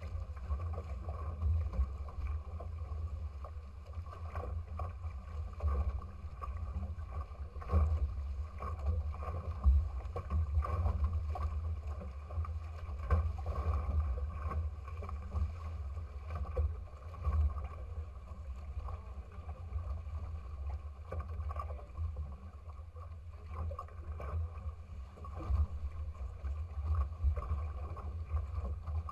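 Water rushing past the bow of the Futura sailing trimaran under way, with a low, uneven wind rumble on the microphone and a few louder wave slaps, the biggest about ten seconds in.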